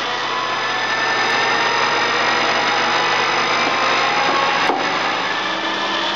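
Acer 1760G geared-head engine lathe making a dry facing cut in 4140 pre-hard steel: a steady machining whir with the headstock gearing's whine creeping slowly upward, because constant surface speed raises the spindle speed as the tool moves in toward the centre. One sharp click comes about three-quarters of the way through.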